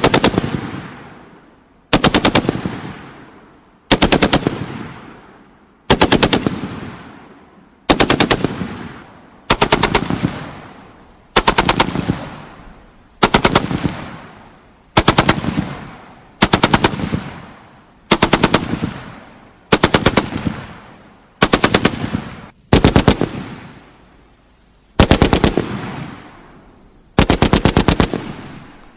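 M2 .50-calibre heavy machine gun firing short bursts of several rounds each, about one burst every two seconds. Each burst fades off in a trailing echo before the next.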